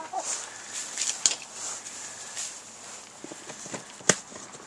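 Rustling and scuffling on hay-strewn ground as chickens come running and peck at scattered cracked corn, with two sharp clicks, one about a second in and one near the end.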